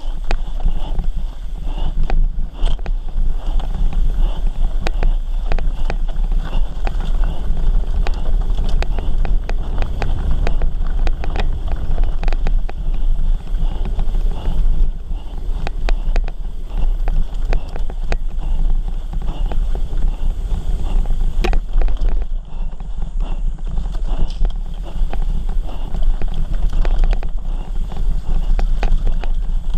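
Mountain bike ridden fast down a dry dirt trail: wind on the microphone and tyres on loose dirt, with the bike rattling and clacking over bumps.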